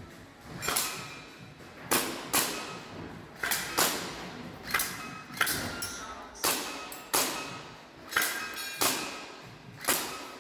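Airsoft guns firing a run of single shots, about one sharp crack a second, some in quick pairs, each followed by a short echoing tail.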